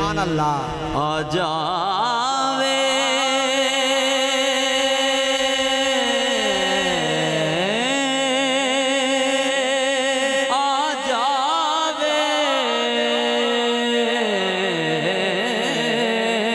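Male naat reciter singing a long wordless melismatic passage, holding notes with wide vibrato and gliding down and back up between pitches.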